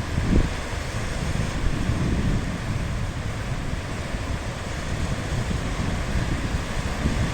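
Sea surf: waves washing in as a steady hiss, with wind rumbling on the microphone and a brief louder surge about half a second in.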